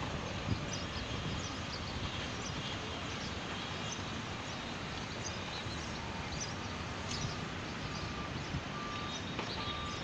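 Steady outdoor hum of a large construction site, with distant machinery and traffic and small birds chirping. Near the end a short electronic beep starts repeating at an even pace, a vehicle's reversing alarm.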